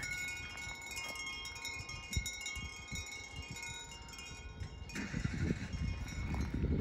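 Chimes ringing, several clear held tones at different pitches sounding over one another.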